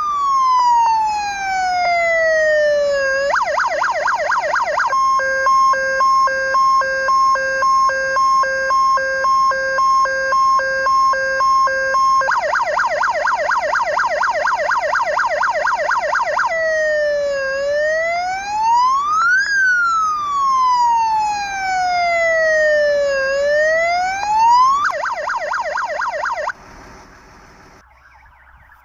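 Jelcz fire engine's electronic siren cycling through its signal modes: a slow rising-and-falling wail, a fast yelp, a steady tone pulsing about twice a second, the fast yelp again, two long wail sweeps and a short yelp. It cuts off abruptly near the end.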